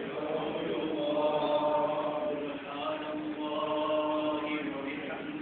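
A voice chanting Islamic religious recitation in a melodic style, with long held notes, in two phrases separated by a brief pause about halfway through.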